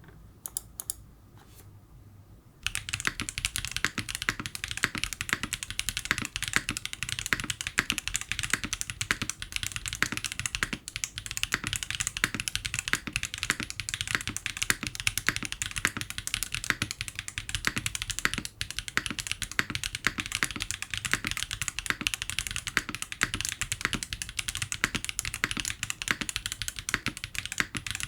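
Mechanical keyboard with Wuque Studio WS Brown tactile switches on an aluminium plate, foamed case and PCB, and GMK keycaps, being typed on fast and continuously after a couple of seconds of near-quiet with a few light clicks.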